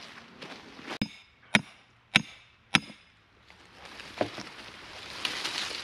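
Hammer driving a wooden grade stake into the ground: four sharp strikes, about one every half second. A steady hiss follows, rising over the last couple of seconds.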